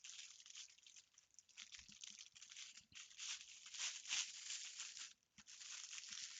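Plastic packaging crinkling and rustling as a folded piece of Aida cross-stitch cloth is slid back into its bag, in irregular handling noises with a brief pause about five seconds in.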